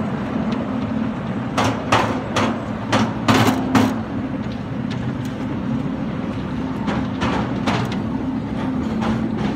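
Quarter-scale ride-on miniature train running along its track: a steady mechanical hum from the train's drive, with a run of sharp clacks from the cars and wheels about one and a half to four seconds in, and a few more near the end.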